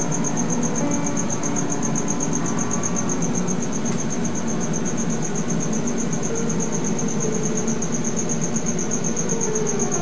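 Slow solo piano music, a passacaglia, with sparse held notes. A steady, rapidly pulsing high-pitched chirp runs under it throughout.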